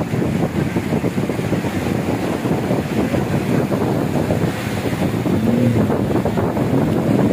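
Wind buffeting the microphone over the steady wash of small sea waves breaking on a sandy shore.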